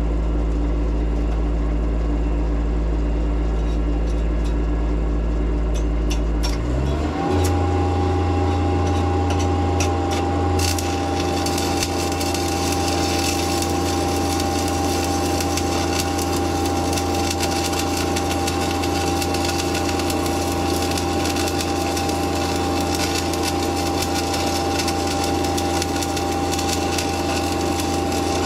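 Engine-driven DC welding machine running at idle, then speeding up to a higher steady pitch about seven seconds in as the arc is struck. From about ten seconds in, the crackling hiss of a 3/32-inch 7018 stick-electrode arc at about 80 amps runs over the steady engine.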